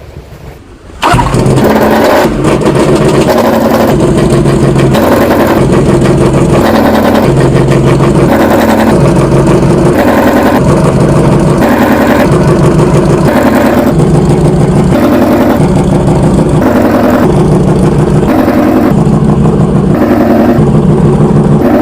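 MotoGP racing motorcycle engine catching about a second in, then run very loud with the revs blipped up and down in quick, regular steps.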